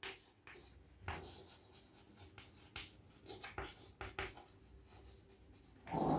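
Chalk writing on a chalkboard: faint, scattered short scratches and taps as the chalk forms letters. A brief voice sound begins near the end.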